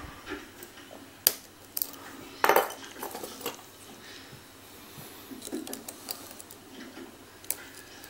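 Metal clicks and clinks from picking a brass lock cylinder clamped in a vise: pick and tension wrench against the lock, and picks being handled. A handful of sharp clicks come in the first half, the loudest about two and a half seconds in, with one more near the end.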